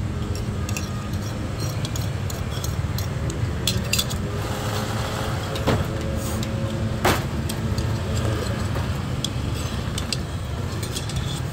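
Steady low rumble of street traffic, with a few sharp clinks of a metal spoon against a ceramic noodle bowl, the loudest two about six and seven seconds in.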